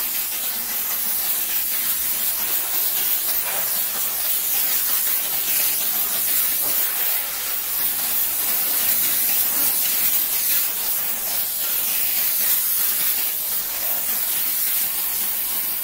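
Steady, loud hiss of a VaporChief 125 steam cleaner's wand spraying a jet of steam mixed with injected no-rinse chemical.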